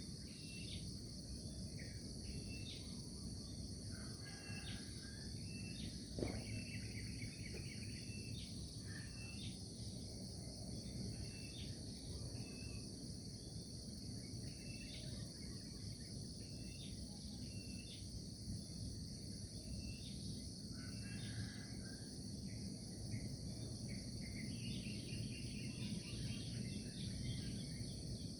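Outdoor insect chorus: a steady high trilling, with short high chirps repeating every second or so over a low rumble. One sharp click about six seconds in.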